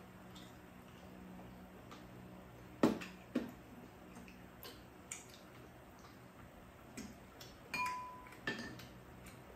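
Chopsticks and a spoon clicking against ceramic bowls and a pan during a meal: a handful of scattered taps, one near the end leaving a brief ringing tone.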